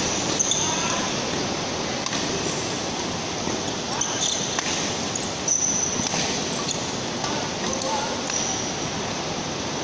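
Badminton doubles rally: sharp racket strikes on the shuttlecock and brief squeaks of court shoes, over a steady hall din with voices in it.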